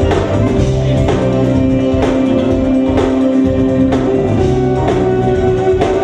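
Music with a steady drum beat under sustained pitched notes and a bass line.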